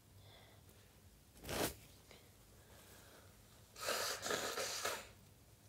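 A woman blowing her nose into a tissue, a noisy blast lasting about a second near the end, after one short sharp nasal noise about one and a half seconds in.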